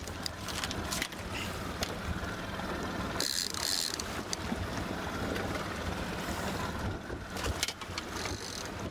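Wind noise on the microphone and choppy lake water splashing around a boat's stern, over the low steady hum of an outboard motor. A louder splash comes about three seconds in as a landing net is dipped into the water.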